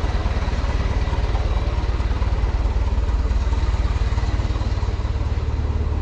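Forklift engine running steadily at a low, even idle, with a dense low pulsing from its firing.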